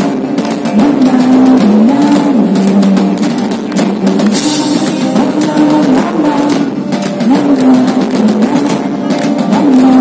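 Live band playing an instrumental passage: a drum kit keeps a steady beat under a repeating keyboard riff, with no singing.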